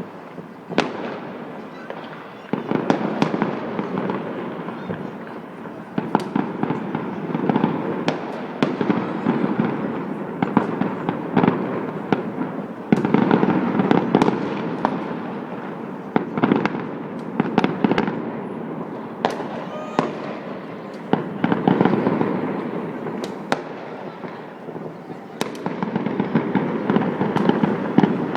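Many fireworks going off at once across a city: a dense, unbroken crackle of bangs and pops, with sharper single reports standing out every second or so.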